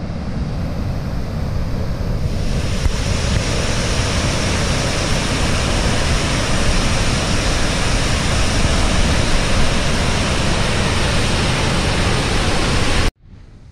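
Wind buffeting a GoPro's microphone on a moving mountain bike, a steady rush that grows louder about two seconds in and cuts off suddenly near the end.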